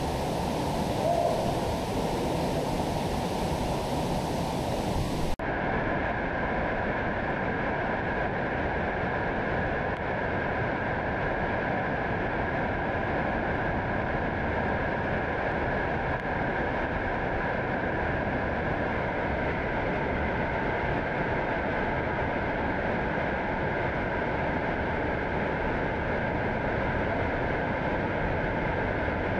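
Steady rush of fast-flowing river water. About five seconds in there is an abrupt cut, after which the rush sounds duller.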